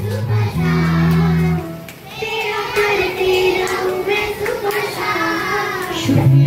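Devotional song as background music: a high voice singing a wavering melody over low, held instrumental notes that drop out for a few seconds in the middle and return near the end.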